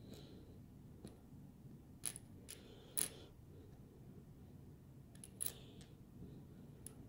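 Handling noise on the recording device: a few sharp clicks and taps over faint room noise, the loudest about three seconds in.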